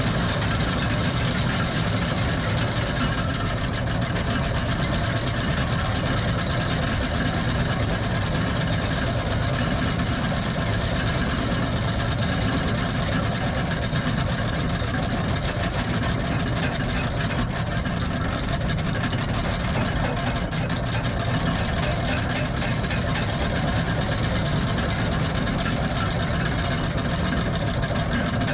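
Yacht anchor windlass paying out anchor chain: a steady mechanical rumble that runs evenly throughout.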